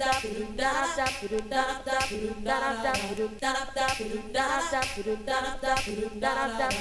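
Music: unaccompanied vocals singing short repeated phrases, without drums or bass, as a new song begins.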